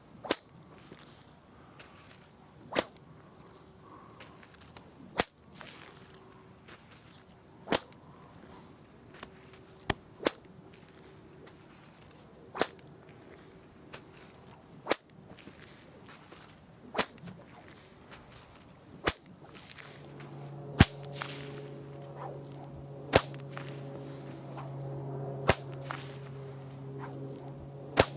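A whip cracking at a steady pace, one sharp crack about every two and a half seconds, about a dozen in all. A steady low hum comes in about twenty seconds in.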